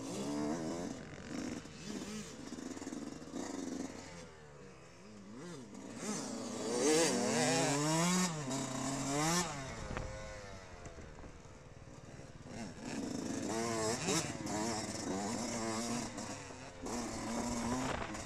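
Dirt bike engines on a motocross track, heard from an on-board camera: the pitch climbs and drops repeatedly as the throttle opens and closes through the turns, loudest around the middle, with gusts of wind noise on the microphone.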